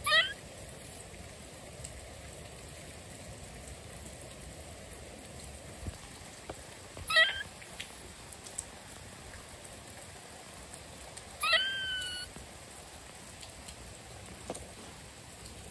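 Gray squirrel calling three times: two quick, wavering squeaky chirps at the start and about seven seconds in, then a longer call about eleven seconds in that rises and holds a steady pitch for nearly a second. Steady rain patters on a surface throughout.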